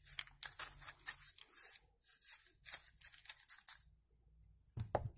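Box-cutter blade scraping the granular black filter media (charcoal and beads) inside a cut-open Barrier Standard 204 plastic water-filter cartridge: a run of short scratching strokes, pausing briefly about two seconds in and stopping near four seconds.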